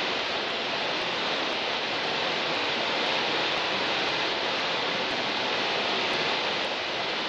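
Mountain stream rushing over a rocky cascade and waterfall: a steady hiss of falling water.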